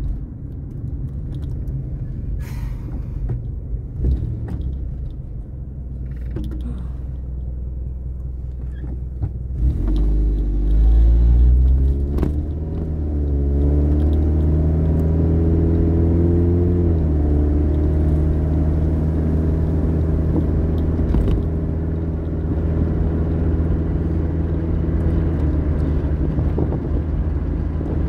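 Car engine and road rumble heard from inside the cabin while driving. About ten seconds in the engine gets louder and its note rises as the car speeds up, then it settles into a steady drone at cruising speed.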